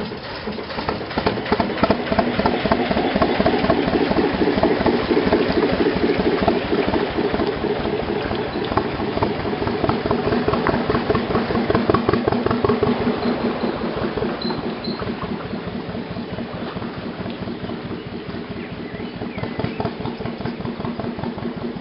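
A 1935 working narrowboat's engine chugging with a steady, even beat as the boat passes. It is loudest in the first half, then grows fainter as the boat draws away.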